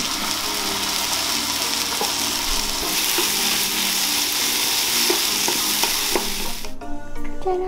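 Beef sizzling as it sears in a hot frying pan, then sliced onions frying and sizzling as they are stirred with a wooden spatula. The sizzle cuts off suddenly near the end and light mallet-toned music takes over.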